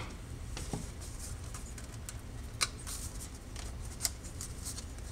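A few sparse, sharp clicks and light knocks from screwdrivers being set down and the multimeter's plastic case being handled on a wooden workbench, over a low steady hum.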